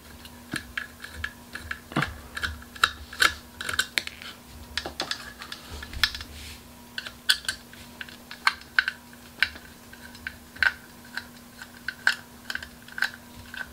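Screwdriver backing out the small screws on the side of an XFX 8800 GTX graphics card's cooler, giving irregular light metallic clicks and ticks, a few a second, as the screws turn and the cooler is handled.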